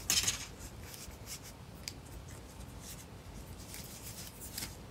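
Hands working chunky wool stitches along a wooden circular knitting needle: soft yarn rustling with faint light clicks, loudest in a brief rustle right at the start.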